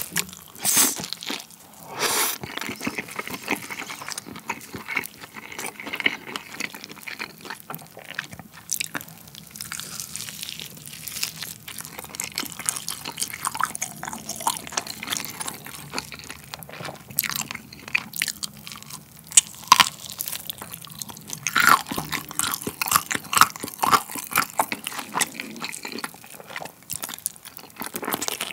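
Close-miked biting and chewing of basil-pesto-coated chicken: a run of crunchy bites and moist chewing, with the loudest bites near the start and again about two-thirds of the way through.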